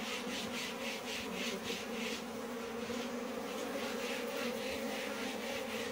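A large cluster of honeybees hanging on the outside of a wooden hive box, humming: a steady, even drone.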